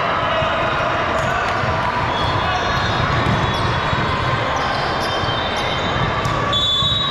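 Gym sound of a basketball game: a ball bouncing on the hardwood amid steady crowd chatter, with brief high-pitched squeaks, loudest near the end.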